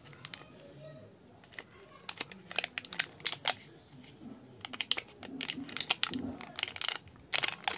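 Clear plastic wrapping around a coiled USB charging cable crinkling as it is handled. The crackles come in irregular bursts starting about two seconds in.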